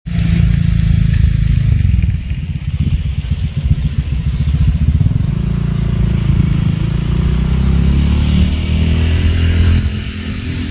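An engine running, a loud low rumble with a fast steady pulse.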